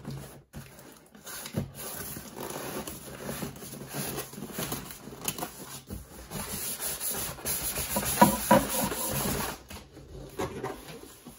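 Cardboard box and white packaging scraping and rustling as a boxed monitor is worked out of its carton, with small knocks throughout and a louder run of scrapes near the end.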